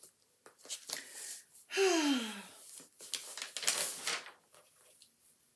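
A woman's voiced sigh about two seconds in, falling in pitch over most of a second. It is followed near four seconds by a breathy exhale, with faint rustles and clicks around them.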